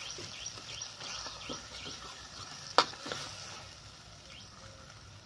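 Tomato-onion masala frying faintly in a brass kadhai while a steel ladle stirs and scrapes it, with small clicks and one sharp clink of ladle on pan about three seconds in.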